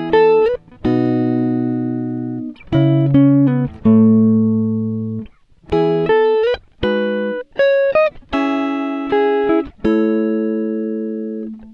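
Background music: plucked guitar notes and chords, each ringing and fading before the next.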